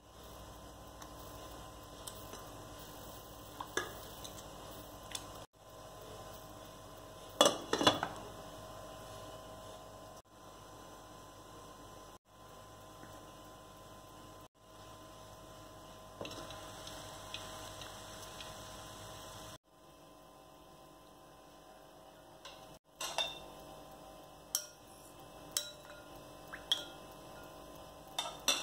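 Kitchen utensils and dishes clinking now and then over a steady hum, with the loudest clatter about eight seconds in and a run of sharper clinks near the end. The sound breaks off abruptly several times.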